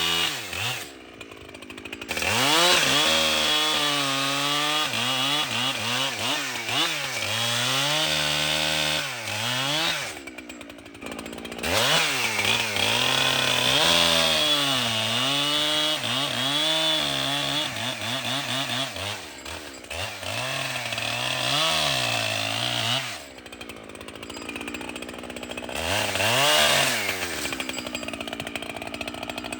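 Echo two-stroke chainsaw cutting wood at full throttle, its pitch sagging under load in each cut and climbing back as it frees up. It drops back to idle between cuts three times: about a second in, around ten seconds in and again past the twenty-second mark.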